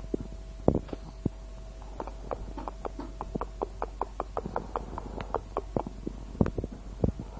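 A quick run of short, sharp clicks, about five a second, with a few single clicks before it and some louder knocks near the end.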